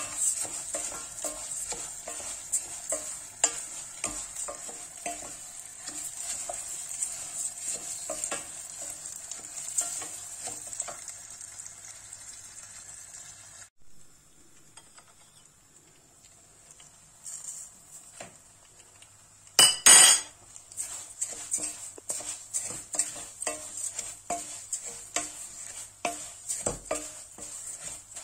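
Bulgur sizzling as it is sautéed in hot fat in a stainless steel pot, stirred with a wooden spoon that scrapes and knocks against the pot, the toasting step before the water goes in. The sizzle drops away for several seconds around the middle, then a short loud clatter, and the sizzling and stirring resume.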